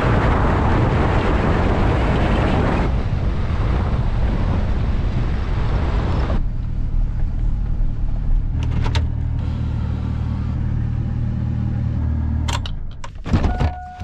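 Pickup truck driving on a gravel road: loud tyre and road noise for the first six seconds, then the steadier, quieter hum of the running truck heard from inside the cab. A little before the end the hum cuts off, as the engine is shut off, and a few clunks follow.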